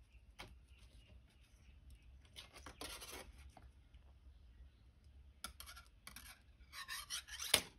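Light handling noises of thin jewellery wire being wound by hand around the stepped barrel of wrap-and-tap pliers: scattered small clicks and scratching, a longer scratchy rub about three seconds in and again near the end, finishing on a sharp click.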